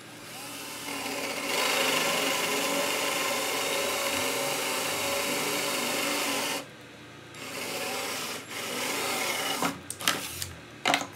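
Cordless drill boring a hole through particleboard, the motor running under load with the grinding of the bit cutting into the board. It stops briefly after about six and a half seconds, runs again in short spurts, and ends in a few sharp clicks near the end.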